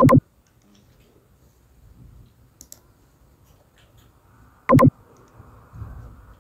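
Two loud computer mouse clicks about four and a half seconds apart, with a few faint ticks between them.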